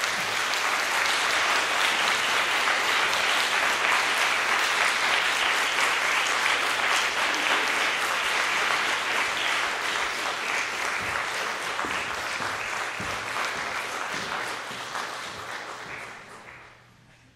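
Audience applauding, dense and steady, then thinning and fading away over the last few seconds.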